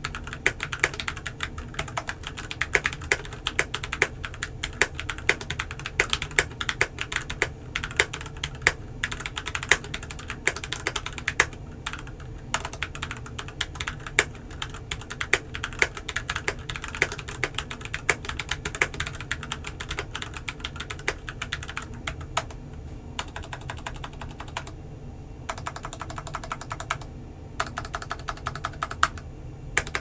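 Typing on a stock Keychron C1 mechanical keyboard with Gateron Brown tactile switches and ABS keycaps: quick, steady keystroke clatter that becomes sparser, with short pauses, over the last several seconds.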